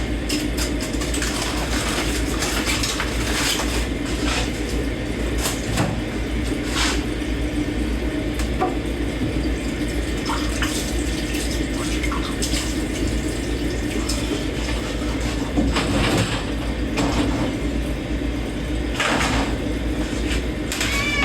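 Dishes being washed by hand at a kitchen sink: tap water running steadily, with scattered clinks and clanks of dishes and cutlery knocking together.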